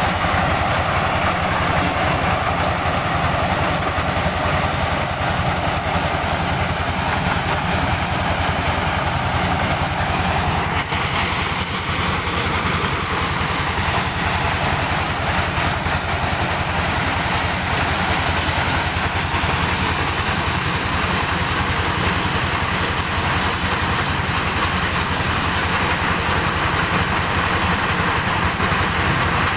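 Diesel-driven mobile corn sheller running steadily under load. The engine and threshing drum hum on evenly, with a constant hiss of cobs being shelled and kernels pouring out.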